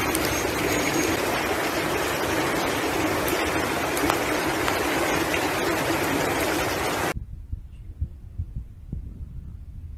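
Rushing floodwater, a loud steady roar of water noise that cuts off abruptly about seven seconds in. It is followed by a much quieter stretch with a few faint low thumps.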